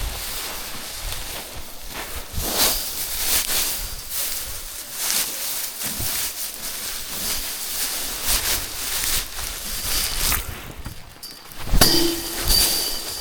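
Paddy being threshed by hand: cut rice stalks beaten again and again, giving irregular rustling strikes. A louder metallic clang rings out near the end.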